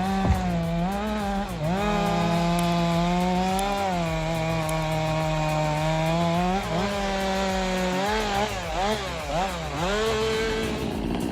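Two-stroke chainsaw running at high revs while cutting timber; its pitch sags as the chain bites into the wood and climbs back when it frees. Near the end it is revved up and down quickly several times.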